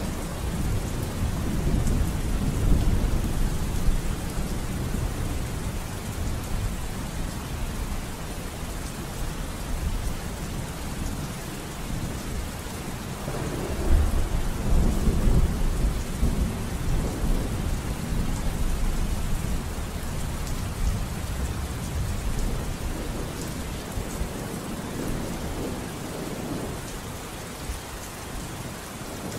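Steady rain with low rolling thunder, a louder rumble swelling about halfway through.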